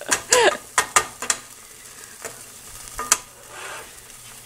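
Beef sizzling in a frying pan, with a few sharp clicks and taps over it, a cluster in the first second and another about three seconds in.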